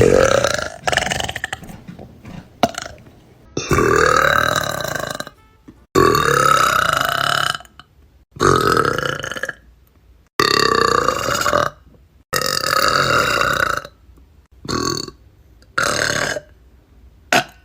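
A string of loud, drawn-out burps from girls, about eight in a row, each a second or two long. Abrupt cuts separate them.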